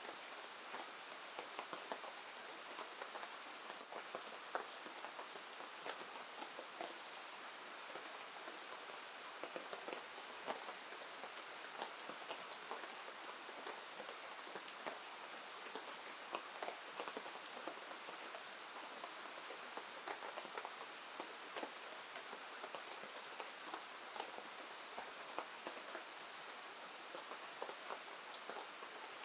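Steady rain falling, heard as a constant hiss dotted with many small sharp drop ticks, one louder tick about four seconds in.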